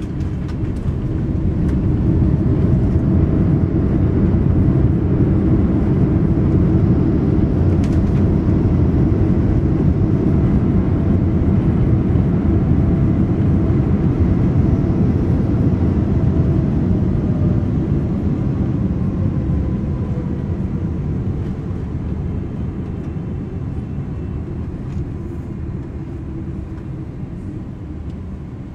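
Boeing 777-300ER rumbling loudly from inside the cabin on the landing rollout, its GE90 engine and runway noise. The rumble swells about a second in, holds, then dies away over the last ten seconds or so as the jet slows.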